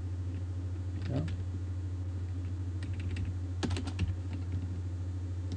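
Typing on a computer keyboard: scattered key presses about a second in, then a quick run of several keystrokes about three and a half seconds in, over a steady low electrical hum.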